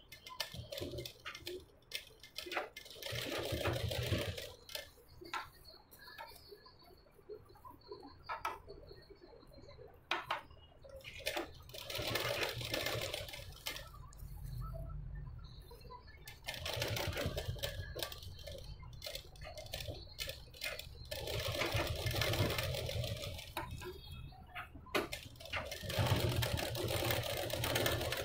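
Domestic sewing machine stitching piping onto the edge of a blouse panel, running in several short runs with brief pauses and clicks in between.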